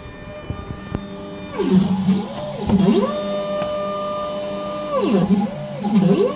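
CNC router's stepper motors driving the axes, a pitched whine whose tone holds steady during a move and swoops down and back up as the machine slows, changes direction and speeds up again. This happens twice, between about one and a half and three seconds in and again near the end.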